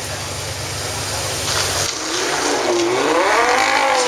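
Lamborghini Gallardo Spyder's V10 giving a low rumble, then about two seconds in accelerating hard, its pitch climbing and then dropping near the end as it shifts up a gear.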